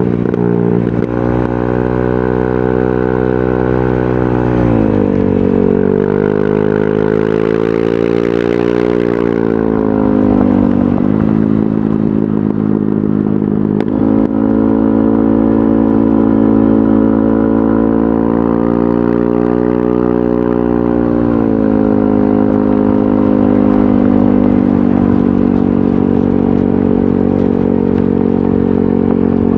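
Yamaha NMAX 155 scooter's single-cylinder four-stroke engine running through a VMAX Onyx aftermarket muffler. The exhaust note is steady, then falls and picks up again several times as engine speed changes. A short rush of noise comes about seven to nine seconds in.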